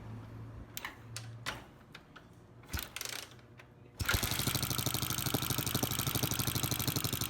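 A Honda CG 125's single-cylinder pushrod engine, its valve cover off, starts about four seconds in after a few light clicks and knocks, then runs with a fast, even beat. The engine has a loud abnormal valvetrain noise that the mechanic puts down to worn pushrods and loose rocker arms hammering the valve tips.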